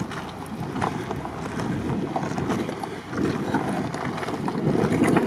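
SsangYong Kyron SUV crawling over loose rubble stone: a low rumble with irregular clacks and crunches of rocks shifting under its tyres.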